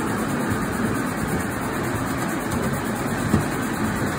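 5-inch gauge 0-4-0 miniature steam locomotive and its train running along the track, a steady rattling run of wheels on rail with one sharp click a little over three seconds in.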